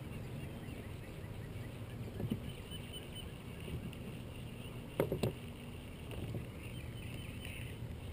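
Small fishing boat on calm water, with a steady low background. There is a knock about two seconds in and a louder double knock about five seconds in.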